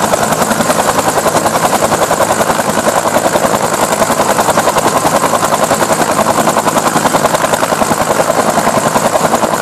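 Bell UH-1 Huey helicopter running on the ground, its two-bladed main rotor beating steadily at about ten beats a second.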